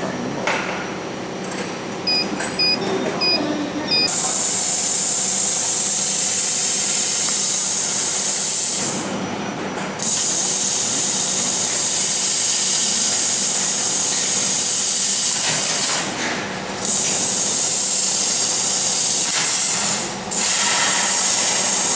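Laser cutting machine's control panel giving four short beeps over a steady machine hum. About four seconds in, a loud, steady hiss of assist gas starts from the CO2 laser cutting head as it cuts sheet metal. The hiss stops briefly three times and starts again.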